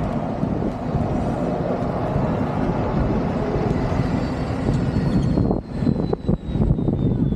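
Wind buffeting the microphone while riding a Kingsong 18L electric unicycle, with a faint high whine from its hub motor that slowly falls in pitch in the second half. The wind noise drops briefly about five and a half seconds in.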